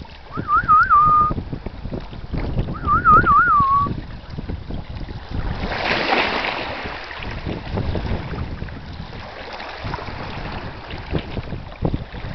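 Wind buffeting the microphone at the water's edge. Two short warbling whistled calls come in the first few seconds, and a louder rush of noise passes about six seconds in.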